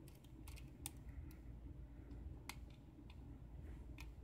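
Faint, irregular clicks and ticks of a hook pick working the pin stacks of a five-pin Abus euro cylinder under tension during single-pin picking, about half a dozen scattered through the stretch.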